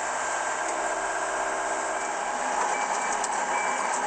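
Tracked excavator driving along with its diesel engine running and its tracks clattering. The engine has a fault that keeps making it shut off in the middle of operation.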